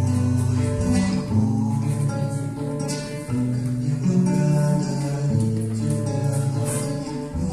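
Instrumental music led by a guitar playing chords that change about every second or so, with no singing.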